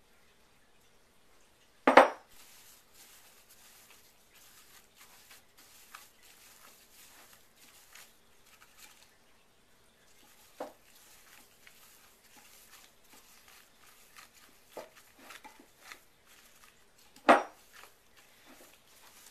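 Glass bowl knocking loudly against a wooden table twice, about two seconds in and near the end, with a few lighter knocks between. Throughout, the soft rustle and squish of a plastic-gloved hand kneading stiff bubble bar dough in the bowl.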